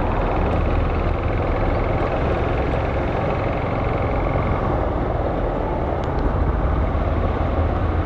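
Motorcycle engine running steadily at low speed in city traffic, with wind rushing over the microphone.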